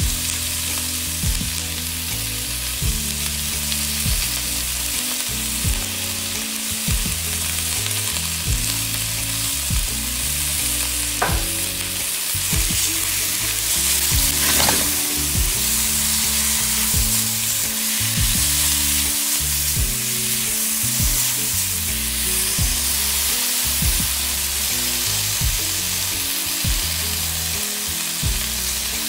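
Sliced peppers, onions and carrots sizzling steadily in a hot oiled stainless wok, stirred and turned with a spatula.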